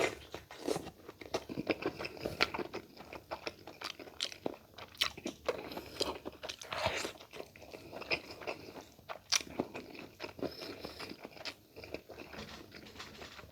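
A person eating close to the microphone: irregular crunching bites and chewing, with many short clicks scattered throughout. The meal is spicy laing with giant tiger prawns.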